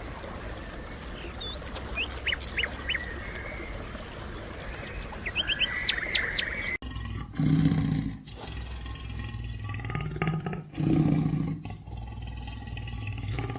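Small birds chirping in quick rising notes. After a sudden cut, a large animal gives three loud, low-pitched calls.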